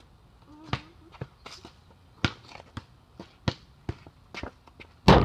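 Basketball bouncing on a hard court as it is dribbled: a string of sharp thuds roughly every half second to a second, with the loudest hit just before the end.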